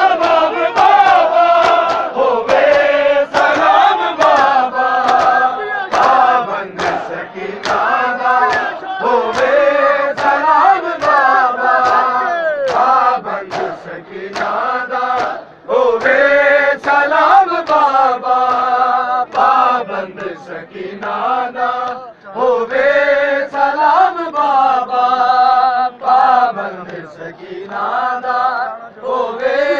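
A Shia noha lament sung live by a lead reciter with a crowd of men chanting the refrain in unison, in repeated melodic phrases. Sharp rhythmic slaps of chest-beating (matam) keep the beat under the singing.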